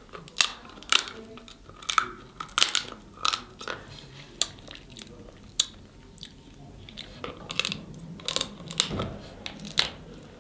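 Snow crab legs being cracked and eaten close to the microphone: irregular sharp cracks and crunches of shell with chewing in between.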